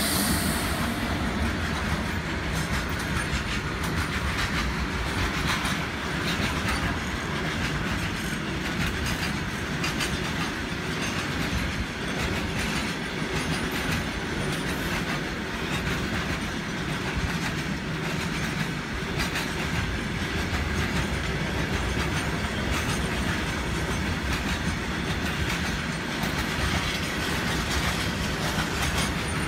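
Indian Railways covered goods wagons rolling past close by in a long freight train: a steady, loud rumble with the wheels clacking over the rail joints.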